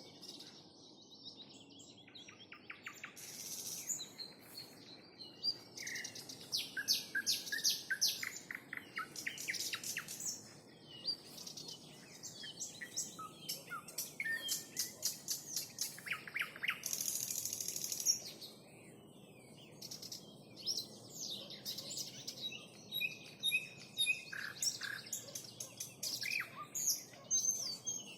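Nightingale singing: phrases of rapidly repeated sharp notes, whistles and trills, separated by short pauses, with one long buzzy rattling phrase about two-thirds of the way through.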